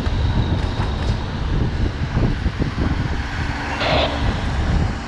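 A fire engine running close by makes a loud, steady low rumble, with a short hiss about four seconds in.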